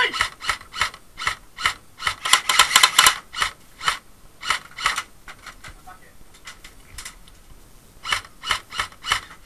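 Airsoft guns firing: strings of sharp single shots with a rapid burst about two to three seconds in, then more shots in quick groups near the middle and near the end.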